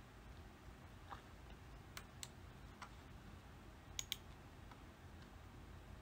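Computer mouse clicking a few scattered times over faint room hiss, with a quick double-click about four seconds in.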